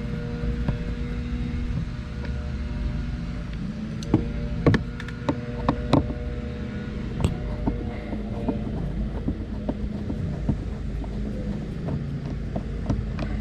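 A screwdriver taking out Phillips screws from a car's door trim: scattered sharp clicks and taps, busiest around the middle, over a steady low hum.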